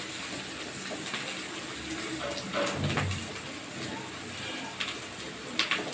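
Sliced onions sizzling in oil in a steel kadhai as they are fried to brown, with a steady hiss. A silicone spatula scrapes and knocks against the pan a few times as they are stirred.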